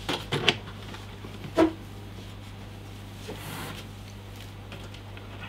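A few short knocks and clicks in the first half-second and one louder knock about a second and a half in, then a soft rustle: hands handling a PC case and its cables. A steady low hum runs underneath.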